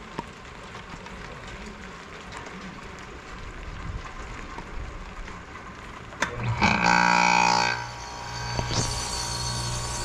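Goodman heat pump outdoor unit starting up: a click about six seconds in, then a loud hum for about a second that settles into a steady running hum.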